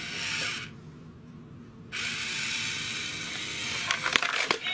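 A battery-powered cat coin bank toy's small geared motor whirring in two spells as it lifts its lid and swings the cat paw out to grab a coin. A quick run of clicks and clacks follows near the end as the mechanism snaps back.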